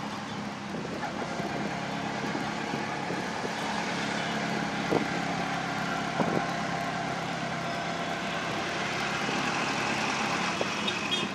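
Engine and road noise inside a moving auto-rickshaw, running steadily through city traffic, with two short knocks about five and six seconds in.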